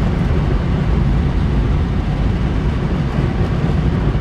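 Steady, low rushing of airflow around a glider's cockpit in flight.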